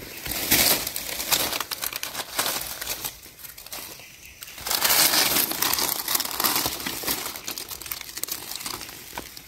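Dry leaf litter rustling and crackling as hands and a knife dig a mushroom out of the forest floor and scrape soil from its stem. It comes in two louder spells, one starting just after the beginning and another about halfway through.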